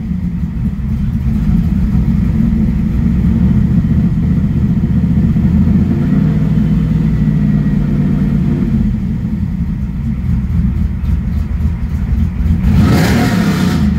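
1995 Pontiac Trans Am's LT1 V8 with a TPIS camshaft idling steadily at about 1,000 rpm once warmed up, heard from inside the cabin. A brief louder rush of noise comes near the end.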